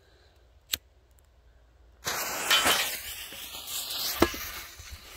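Five-shot consumer firework cake going off: a single sharp pop under a second in, then about two seconds in a sudden loud hissing, crackling rush that lasts a couple of seconds, with a sharp bang near its end before it fades.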